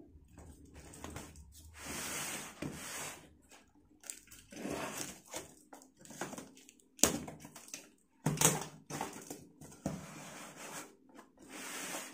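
Box cutter slitting packing tape along the seams of a cardboard box, in a series of noisy strokes about a second each, with a sharp knock about seven seconds in and another just after eight.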